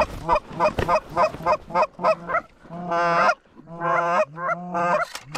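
Canada goose honking: a quick run of about eight short clucking honks, then several longer, drawn-out honks.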